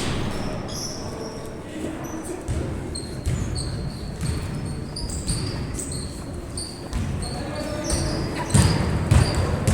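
Basketball game on an indoor court: sneakers squeaking again and again, with the ball bouncing and a couple of heavier thuds near the end.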